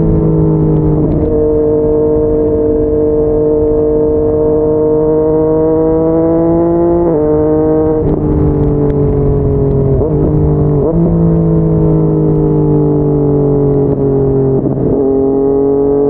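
Yamaha MT-09's inline-three engine through a Yoshimura R55 slip-on exhaust, running hard at highway speed. Its note climbs slowly for several seconds, then jumps up and down in sudden steps with gear changes as the bike slows.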